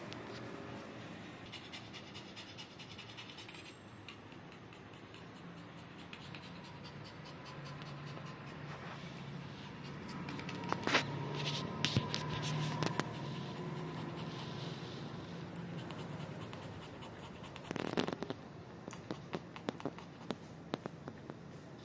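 Soft scratching and shuffling from a mother dog and her newborn puppies moving on a wooden floor. A few sharp clicks come around the middle and again near the end.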